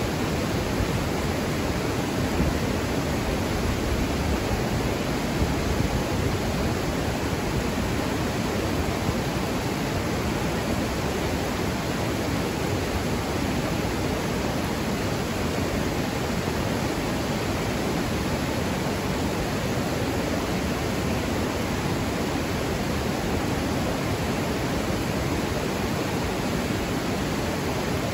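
River rapids rushing: water running fast over rocks in a steady, unbroken noise.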